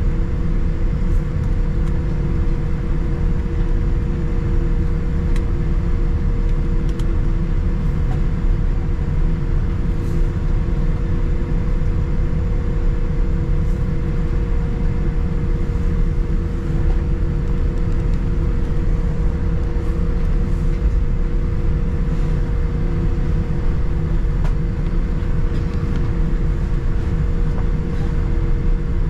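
Steady cabin noise inside a Boeing 787-9 airliner: a low, even rumble of the engines and airflow with a couple of steady hums and a few faint ticks, as the jet rolls on the ground before takeoff.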